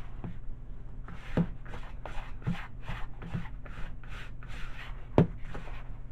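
Gloved hands kneading and squeezing oil-coated baking soda in a glass bowl: a run of gritty scrunching rubs, about three a second, from about a second in, with a few sharper knocks, the loudest about five seconds in.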